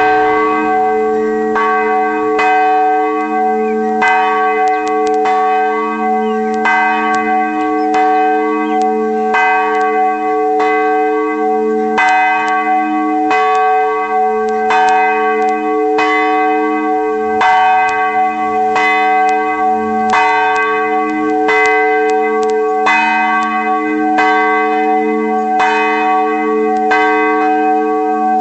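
Church bell ringing, struck over and over at a little more than one stroke a second, each stroke ringing on into the next so the tone never dies away. It starts suddenly at full loudness.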